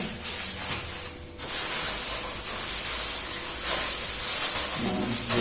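Rustling and crinkling of gift packaging being handled and opened, starting about a second and a half in and going on irregularly.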